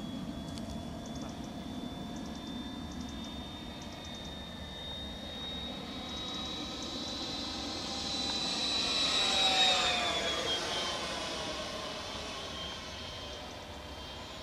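69 mm electric ducted fan (Wemotec Minifan on a Typhoon 2W20 motor) of an RC F-104 Starfighter model jet whining high in flight. It grows louder to a peak as the jet passes close about nine to ten seconds in, then its pitch drops as it moves away.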